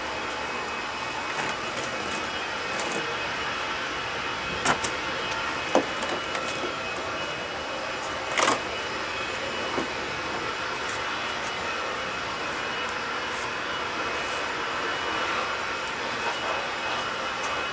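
Latex rubber mold being peeled off a cement casting and handled, giving a few sharp slaps and rustles, about a third of the way in and again near the middle. Under it runs a steady background rumble.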